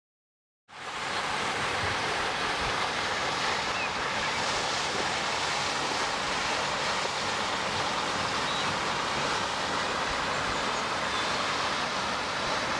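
Steady outdoor rushing noise with no speech or music. It fades in under a second in and then holds even.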